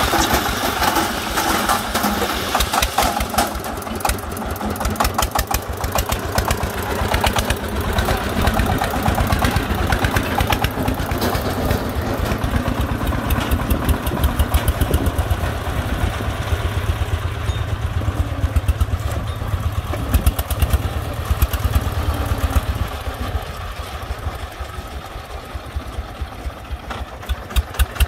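Single-cylinder diesel engine of a công nông three-wheeled farm truck running with rapid, even chugging. It eases off a little near the end, then comes up loud again as one passes close.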